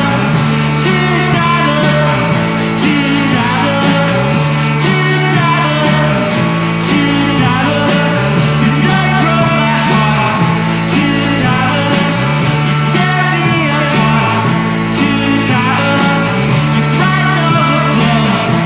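Rock background music with guitar and a steady drum beat. A low bass figure repeats about every two seconds.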